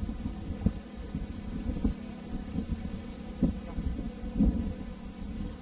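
Wind buffeting the microphone in uneven low rumbles and soft thumps.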